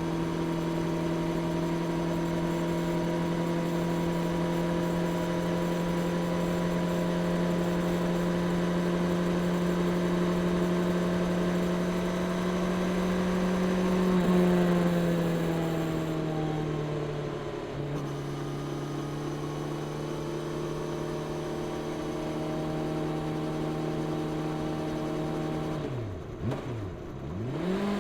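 Honda CB650R's inline-four engine on its stock exhaust under way: a steady engine note that climbs slowly, eases off about halfway, then steps down in pitch at a gear change. It holds steady, then the revs dip and come back up twice near the end.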